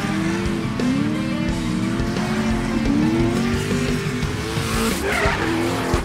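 Drift car engine revving in a series of rising surges as the car slides, with tires squealing near the end, over background music.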